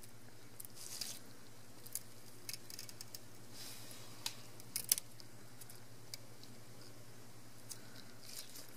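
Faint, scattered clicks and rustles of gloved hands and a fine tool handling a disassembled camera's innards, peeling a thin plastic anti-static sheet off the sensor board. A low steady hum runs underneath.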